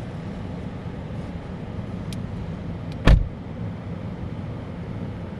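Car running with a steady low hum. There is a light click about two seconds in, then a single loud thump of a car door shutting about three seconds in.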